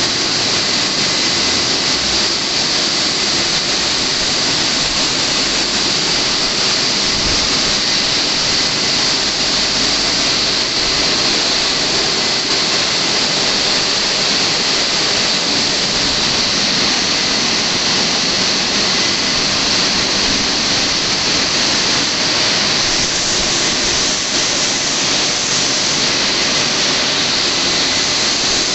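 WashTec SoftCare 2 Pro rollover car wash running: a loud, steady rushing noise that does not let up.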